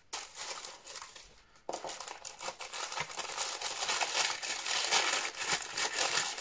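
White tissue paper rustling and crinkling as it is pulled open inside a cardboard gift box, light and sparse at first, then loud and continuous from about two seconds in.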